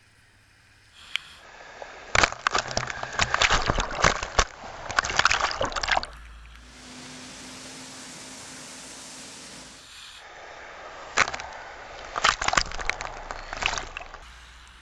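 Flood water thrown up by buses driving through a flooded road, splashing and spattering against the camera housing in two loud spells. Between them there is a steady rush of spray with a low hum.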